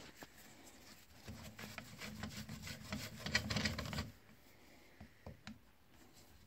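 A screwdriver turning out one of the two long through-bolts that hold a Lucas dynamo together: a rasping scrape of metal on metal for about three seconds, then a few faint clicks.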